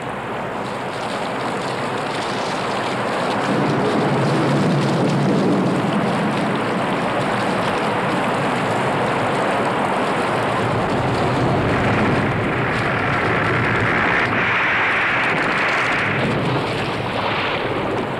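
Heavy rain and gusting wind of a summer thunderstorm: a loud, steady rush. A low rumble swells about four to eight seconds in, and the hiss grows brighter later on.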